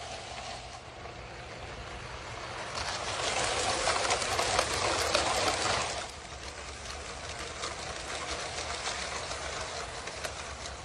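LEGO train running on plastic track, its wheels and motor making a fast, steady clatter. The clatter swells to its loudest about three seconds in and drops back near the six-second mark, as the train passes close.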